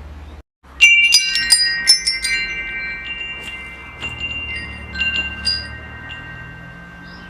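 Wind chimes struck in a quick cluster about a second in, their high tones overlapping and ringing on for several seconds, with a few softer strikes later. A steady low hum lies underneath.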